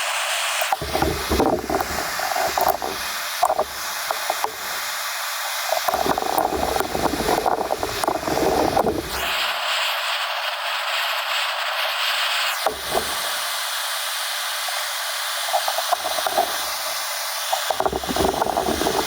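Gas blowtorch flame hissing steadily as it heats the end of a steel recoil starter spring, with bouts of low rumbling handling noise now and then.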